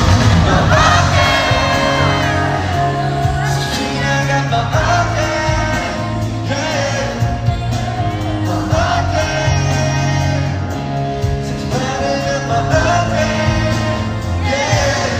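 Live pop/hip-hop music with a singing voice and a steady bass line, played loud over a large hall's sound system.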